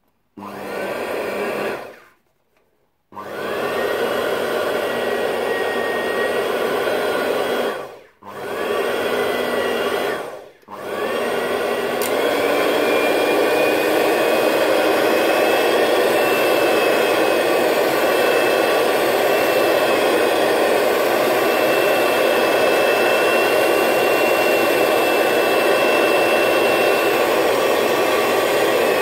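Electric hand mixer beating cake batter as vanilla extract is added. It is switched off and on again three times in the first ten seconds, spinning up each time, then runs steadily at a higher speed from about twelve seconds in.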